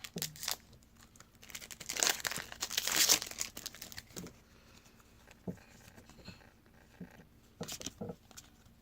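Foil wrapper of a trading card pack crinkling and tearing open, loudest about two to three seconds in, followed by a few soft taps.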